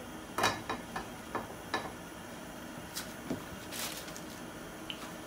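Light knocks and taps as slices of white bread are set down and shifted in a dry nonstick frying pan, with a short rustle of handling near the end, over a faint steady hiss.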